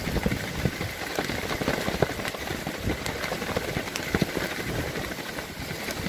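Wind-driven waves splashing and washing onto the shore, with gusts buffeting the microphone and irregular crunching footsteps on the wet bank.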